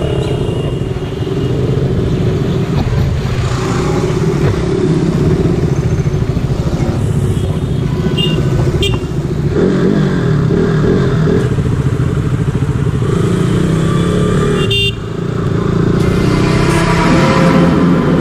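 KTM RC sport bike's single-cylinder engine running steadily while riding through traffic. A couple of short horn toots sound about halfway through.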